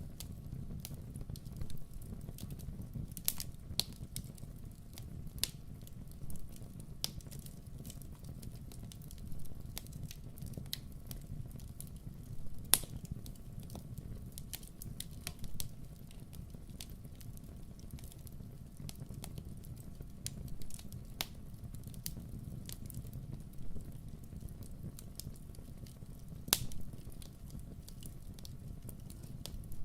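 Wood campfire burning with a steady low rumble and irregular sharp crackles and pops, the loudest pop about halfway through.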